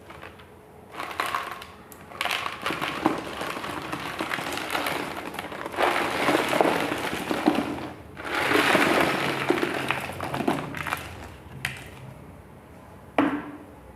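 Ice cubes clattering and crackling as they are loaded into a polystyrene box, in several spells over about ten seconds, then a single knock near the end.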